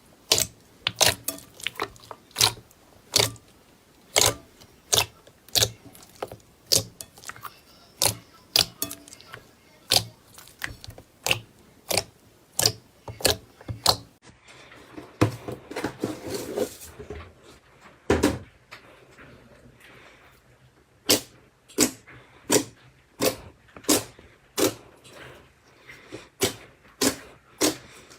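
A sensory toy being pressed by hand, giving sharp pops and clicks about one to two a second. About halfway through, the pops give way for several seconds to a softer squishing before they resume.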